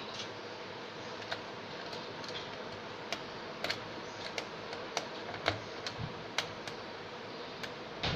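Irregular light clicks and taps of computer hardware being handled and fitted, about a dozen, most of them in the middle and one more near the end, over a steady hiss.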